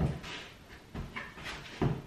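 Soft footsteps of wedge espadrilles on a wooden floor: two low thumps, about a second in and near the end.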